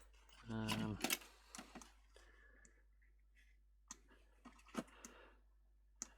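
A short low hum about half a second in, then scattered light clicks and taps from small parts and tools being handled during electronics repair.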